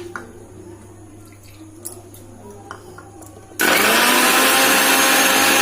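A few faint clicks, then, about two-thirds of the way in, an electric kitchen mixer grinder switches on and runs loud and steady, grinding ginger and spices with a little water into a fine paste.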